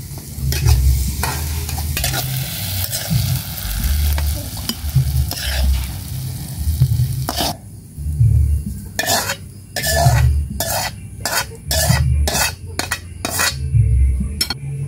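Metal spatula stirring and scraping crumbled tofu in a hot wok, the oil sizzling underneath. About halfway through, the sizzle drops away and a run of separate scrapes and knocks follows, two or three a second, as the tofu is scraped out of the tipped wok.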